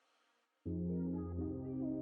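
Background music: after about half a second of near silence, a calm ambient track begins with sustained chords that change about once a second.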